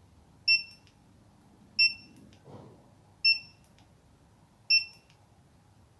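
An electronic beeper in the car sounds four short, high-pitched beeps, evenly spaced about a second and a half apart.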